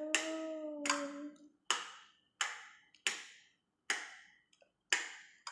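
A child clapping their hands, about eight sharp claps at a steady pace of a little over one a second. A child's voice holds one note under the first claps.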